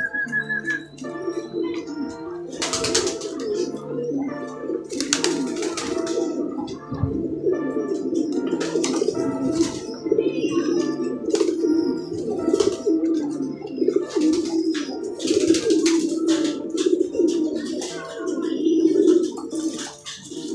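A loft full of pigeons cooing continuously in a low, dense murmur while they feed, with brief noisy rustles now and then. Background music plays along.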